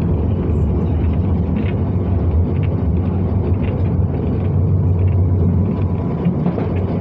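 London Underground train running at speed, heard from inside the carriage: a steady low rumble with light scattered clicking.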